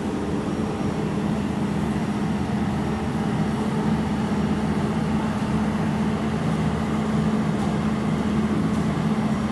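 Jewelry laser welding machine switched on and idling: a steady low hum with a constant pitch, from its cooling fan and pump, with a few faint ticks near the end.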